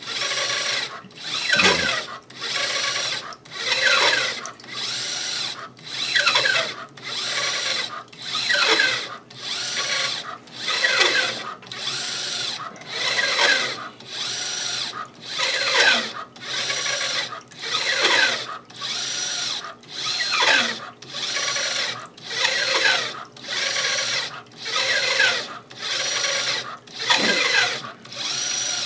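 Motorized ultrasonic corrosion scanner (Raptor RCA-10) driving its probe carriage back and forth along the pipe in a raster scan. It makes a pulsing motor whine that repeats a little faster than once a second, and each pulse falls in pitch.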